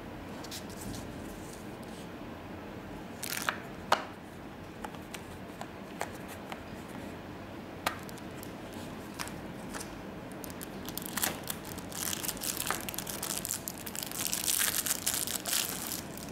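Clear plastic storage case being handled and opened: a few sharp plastic clicks and snaps, then a longer run of crinkling, crackling plastic that grows loudest near the end.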